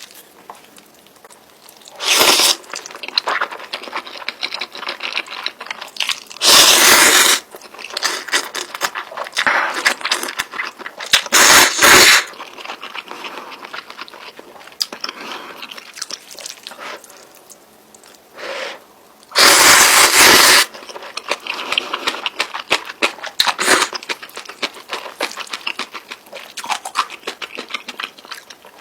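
Close-miked eating of spicy instant noodles: steady chewing and small wet mouth clicks, with four loud bursts about a second long spread through.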